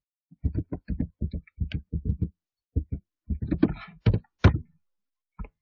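Computer keyboard typing: a quick even run of about a dozen keystrokes, a short pause, a looser handful more, then a single key press near the end.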